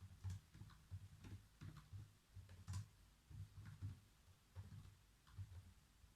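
Faint typing on a computer keyboard: irregular runs of key clicks, several a second, with short pauses between runs.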